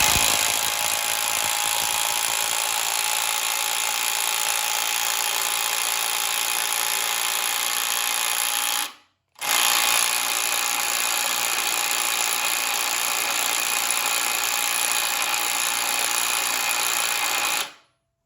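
Bosch cordless impact driver, rated to 180 Nm, hammering steadily on a wheel nut torqued to about 203 Nm. It runs in two long bursts with a brief stop about nine seconds in, unable to break the nut loose.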